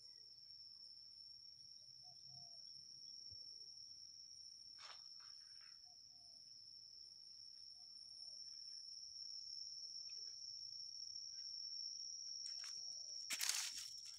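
Insects trilling in one steady, high-pitched unbroken note, with a few faint short bird calls. Near the end come several loud crunching, crackling bursts.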